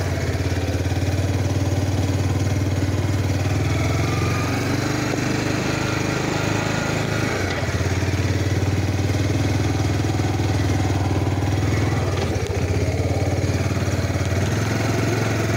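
Small off-road vehicle's engine running at a steady speed while riding.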